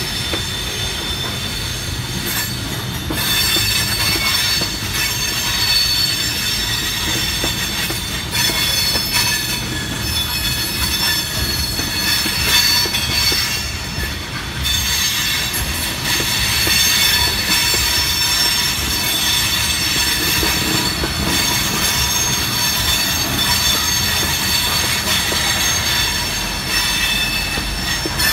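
Freight train of tank cars rolling steadily past: a constant rumble of wheels on rail with a steady, high-pitched squeal of the wheels on the rails laid over it.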